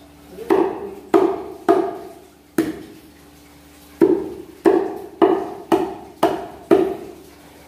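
Meat cleaver chopping a cooked whole duck into pieces: about ten sharp chops, roughly two a second, with a short pause after the first four.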